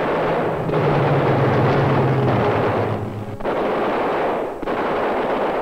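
Rapid machine-gun fire in long bursts broken by brief pauses, over a low drone that fades after about three seconds.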